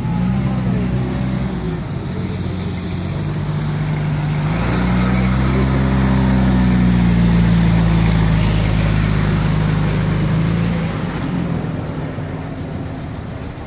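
A car engine running close by: its note rises about four and a half seconds in, runs louder for several seconds, then falls away about eleven seconds in.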